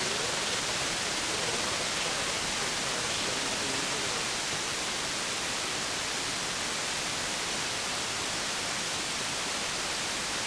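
Steady static hiss from a radio receiver with no station transmitting, with a faint wavering signal buried in it for the first few seconds.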